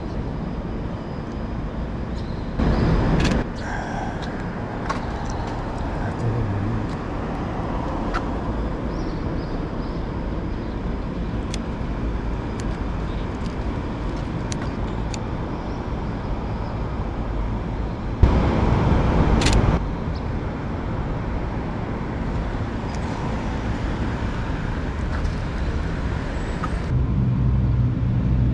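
City street ambience with road traffic running steadily. Two brief louder rushes of noise come about three seconds in and again near eighteen seconds.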